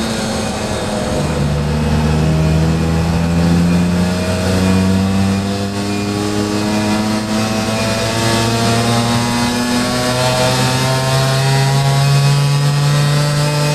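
Yamaha FS1 moped's two-stroke rotary-valve engine with a 12.8 hp cylinder kit and a slanted-cut exhaust, held at full throttle through a dyno pull, its pitch climbing steadily as the revs rise.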